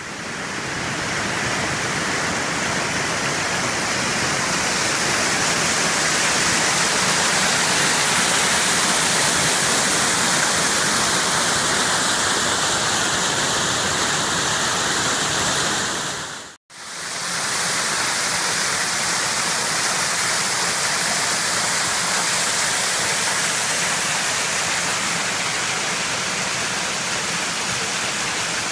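Flume Brook rushing over rocks and small falls: a loud, steady rush of water. It fades up at the start, cuts out for an instant a little past halfway, and fades back in.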